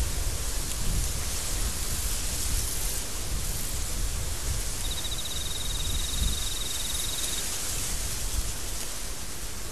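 Storm wind blowing steadily, an even rushing hiss with low gusty rumbling underneath. About five seconds in, a thin high trill sounds for about two and a half seconds.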